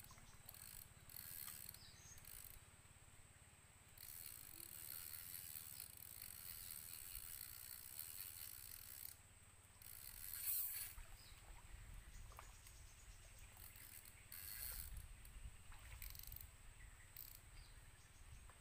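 Fishing reel being cranked as line is wound in: a faint mechanical whirring and clicking that starts and stops in stretches.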